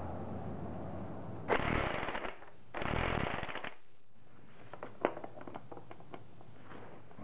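Impact wrench hammering in two short bursts, about a second each, running a 41 mm socket onto the top nut of an air strut to tighten it. Then a few light metal clicks as a hand ratchet goes onto the socket.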